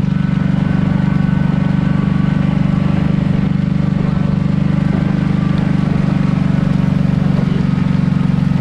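Kawasaki Brute Force 750 ATV's V-twin engine running at a steady, unchanging pitch while towing a boat through shallow water, its rear tyre churning and splashing the water.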